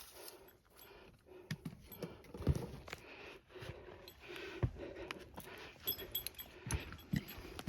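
A hiker's footsteps on a rocky mountain trail, irregular thuds and scuffs, with small gear jangling in between.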